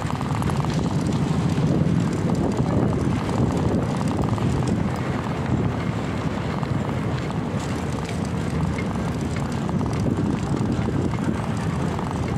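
Steady low rumbling noise of riding a bicycle over rough concrete: wind buffeting the microphone, mixed with tyre noise.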